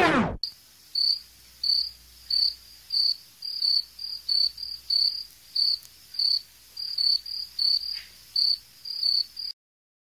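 Cricket chirping, short high-pitched chirps about twice a second, stopping abruptly near the end. A music track cuts off right at the start.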